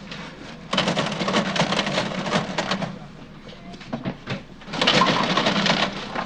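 Cash register clattering in two long runs of rapid mechanical clicking as purchases are rung up.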